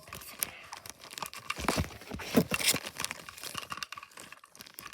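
Crinkling, rustling and crackling of packaging handled close to the microphone, in irregular bursts with small clicks, busiest in the middle.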